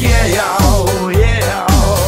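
Song music with a steady beat, about two beats a second, and a melody line over it.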